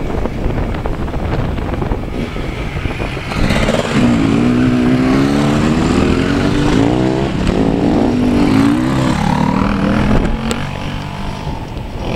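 Off-road enduro motorcycles riding along a gravel lane. One bike is loudest from about four to nine seconds in as it passes close, its engine pitch climbing and dropping several times, with other bikes running in the background.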